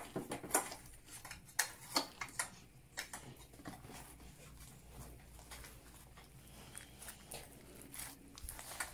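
Slime being kneaded and stretched by hand: irregular wet, sticky clicks and squelches, busiest in the first few seconds and softer after.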